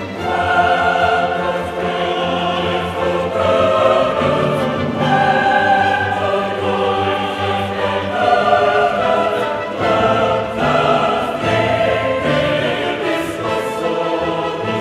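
Music: a choir singing long held notes over an orchestra, the chords changing every second or two.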